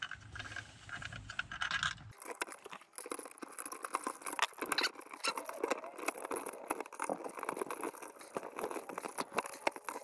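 Hands working a blue plastic remodel electrical box, with its back tabs pushed in and electrical cable fed through: a steady run of small clicks, taps and plastic scrapes.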